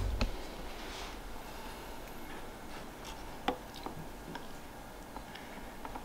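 A few faint, sharp clicks and taps against quiet room tone as a Noctua thermal paste syringe is handled and pressed over the CPU to lay down a drop of paste; the sharpest click comes about three and a half seconds in.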